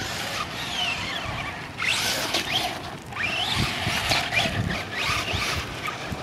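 Electric radio-controlled truck's motor whining, its pitch rising and falling as it speeds up and slows down in several runs, the strongest bursts about two and three seconds in, over a hiss of tyres on dirt.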